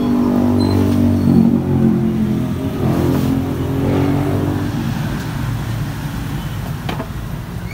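A motor vehicle engine running close by, its pitch rising and falling as it swells and then fades away. A single sharp click comes near the end.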